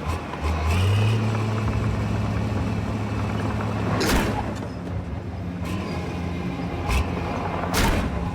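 Heavy diesel engine of large earthmoving equipment running steadily, its pitch rising about a second in, with a few short, sharp noises about four, seven and eight seconds in.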